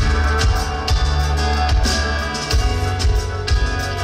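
A live rock band playing: a drum kit beating out a steady rhythm under sustained bass notes and electric guitar.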